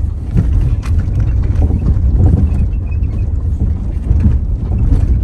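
Cabin noise of a Honda car rolling slowly over an unpaved dirt road: a loud, uneven low rumble from the tyres and suspension, with a few sharp knocks and rattles, one about a second in.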